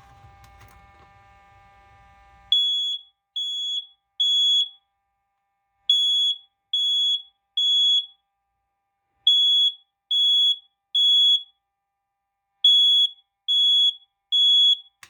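Smoke alarm sounding its shrill beep in the three-beep temporal-three evacuation pattern: four groups of three beeps with a pause between each group, starting a couple of seconds in after a low steady hum cuts off.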